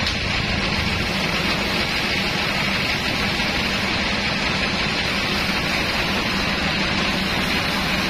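Vertical band sawmill running: a steady hum from the drive with an even, continuous noise from the moving band blade.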